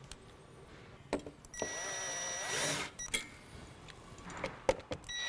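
Cordless drill/driver running for about a second and a half, driving a mounting screw part way in on a wine cooler's cooling kit, with its motor's pitch wavering. A few light clicks before and after.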